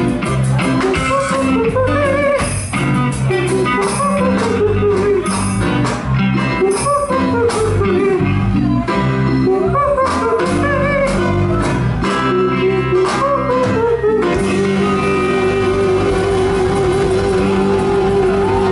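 A live band with electric guitar, bass guitar and drums playing an instrumental passage, with a wavering, bending lead melody over it. About fourteen seconds in, the lead settles into one long held note while the band plays on.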